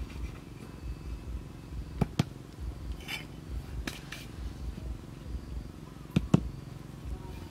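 Small wooden blocks being set down and knocked into place on the ground: sharp wooden clacks, a quick pair about two seconds in, a single one near four seconds and another quick pair later, with a brief scrape between them, over a low, uneven rumble.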